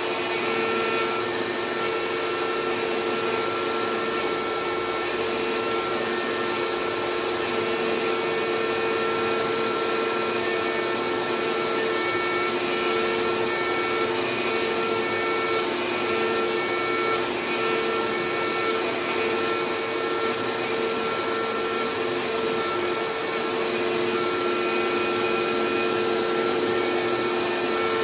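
CNC router with a DeWalt router as its spindle, running steadily with its vacuum dust extraction while it mills a carbon fiber sheet: a constant motor whine over a steady rush of suction.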